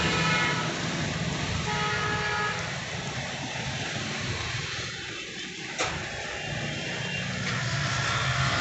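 Car engine running steadily with a low rumble, with a few brief horn toots in the first few seconds and one sharp click about six seconds in.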